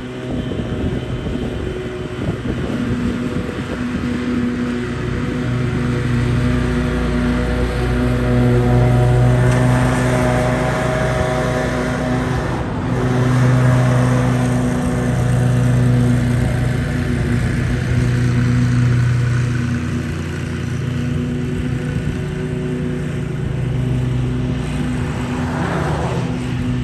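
Zero-turn riding mower engine running steadily at mowing speed, its blades cutting grass. It grows louder through the middle as the mower comes close, then eases off somewhat.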